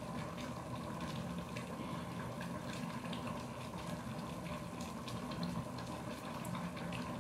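Steady hiss and low hum of kitchen background noise, with faint scattered ticks.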